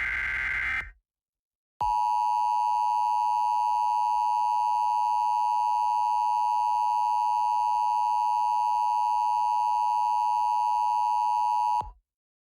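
Emergency Alert System broadcast tones: the tail of a SAME digital header burst, a short screeching data sound that ends about a second in. After a short gap comes the EAS attention signal, a steady two-tone beep held for about ten seconds that cuts off suddenly.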